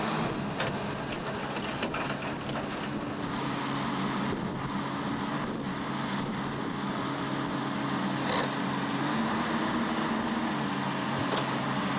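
Diesel engine of a tracked hydraulic excavator running steadily under load, its note shifting a little as the arm works to pull old timber groyne planks out of the sand, with a few short knocks.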